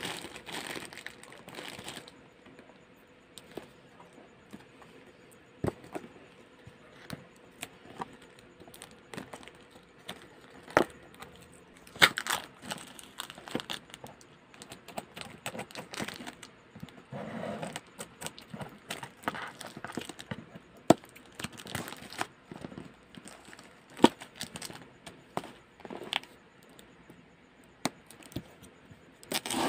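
Plastic wrapping crinkling and being cut with scissors around a cardboard shipping box, with scattered sharp clicks and taps as the box and packing tape are handled.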